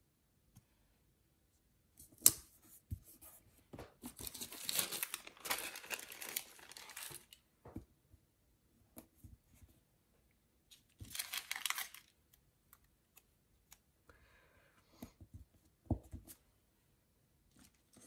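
Paper sticker sheets being handled, rustling and crinkling in bursts; the longest lasts about three seconds, and there are a few light taps near the end.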